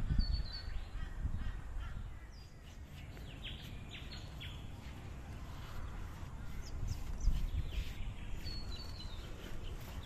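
Wild birds chirping and calling: many short high notes, some sliding downward, scattered throughout, over a low rumble that is strongest at the start and again about seven seconds in.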